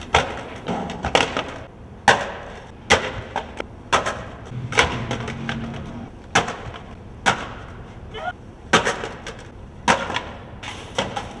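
A skateboard's deck and trucks clacking and slapping on concrete: an irregular run of sharp wooden knocks, about one every half second to a second, from the board hitting the ground during tries and a fall.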